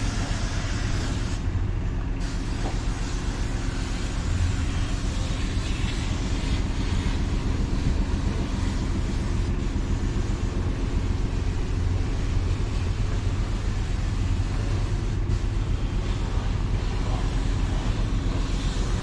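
A steady, engine-like drone under a constant rushing noise, unchanging throughout.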